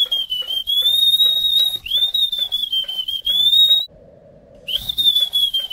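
A man whistling a high, wavering tune through his teeth. The melody pauses for under a second near the end and then resumes.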